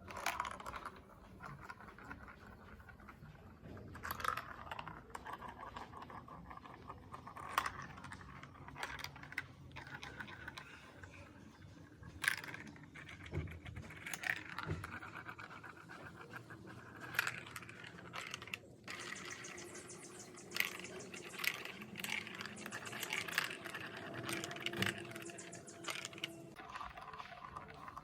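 Plastic marble-run building pieces clicking and rattling as they are handled, with a sharp click every second or two.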